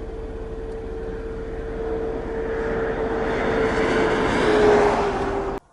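A vehicle approaching: a rushing hiss over a steady hum grows louder for about five seconds, then cuts off suddenly near the end.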